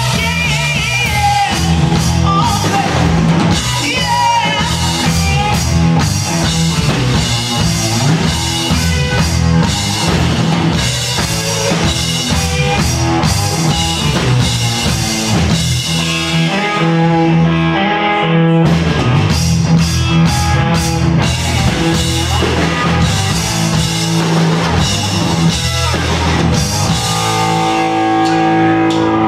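A rock band playing live: electric guitars over a drum kit with steady cymbals, loud and continuous. The cymbals drop away briefly a little past halfway, then come back in.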